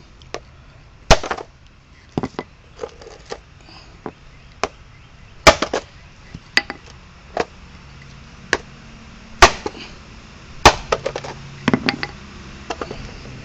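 Hammer striking an AC power adapter to break open its case: irregular sharp knocks, four hard blows among many lighter taps.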